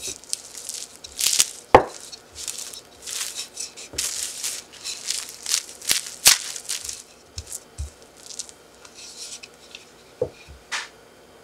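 Plastic cling wrap crinkling and rustling under a wooden rolling pin rolled back and forth over a slab of dough, with a few sharp clicks. The rustling thins out near the end.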